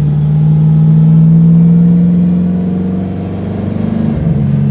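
Car engine pulling under acceleration, its pitch rising slowly, then dropping suddenly about four seconds in as the automatic transmission shifts up. The engine is misfiring on some cylinders and skipping, by the driver's account.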